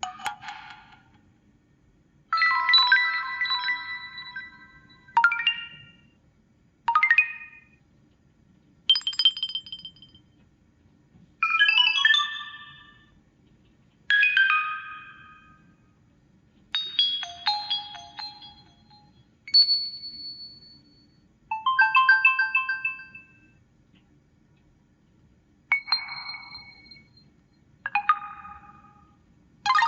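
T-Mobile HD2 (HTC) phone ringtones played one after another: about a dozen different short melodic chimes and alert tones, each lasting a second or two, with brief pauses between them.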